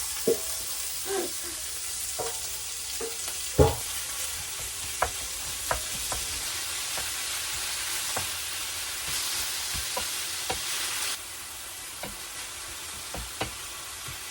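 Ground pork frying with onions and garlic in a hot pan, sizzling steadily while a spatula stirs it and knocks against the pan, the loudest knock about three and a half seconds in. The sizzle eases about eleven seconds in.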